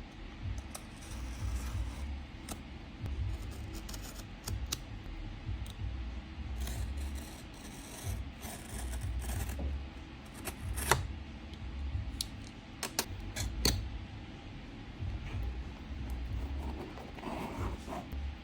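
Hands handling packaging or a small device: rubbing and scraping with scattered sharp clicks, two louder clicks about 11 and 13½ seconds in, over a low uneven rumble.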